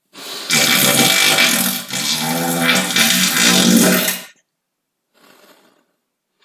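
A long, loud human fart of about four seconds, a buzzing pitched rasp that wavers and dips briefly about two seconds in; a faint short puff of air follows about a second after it ends. It is made deliberately, with air drawn in through the anus and forced back out.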